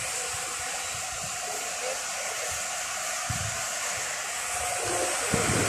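Steady rushing hiss of blowing air, with a faint steady hum under it and a couple of low thumps, one a little past halfway and one near the end.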